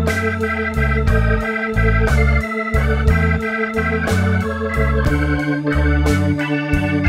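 Blues instrumental background music led by an organ holding chords over a stepping bass line, with drums keeping a steady beat.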